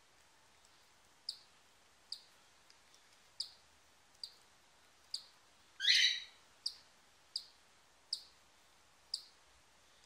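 A newly hatching cockatiel chick, still partly inside its shell, peeping: short, high peeps about one a second, with one louder, longer call about six seconds in.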